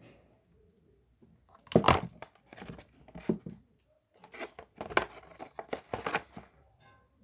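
Packaging being torn and crinkled by hand while unboxing a statue, in two clusters of irregular rustling bursts.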